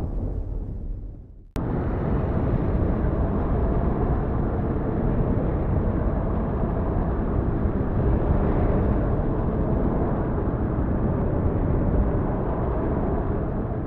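A steady, dense low rumbling noise that cuts in abruptly about a second and a half in and runs on evenly, without separate claps or peaks.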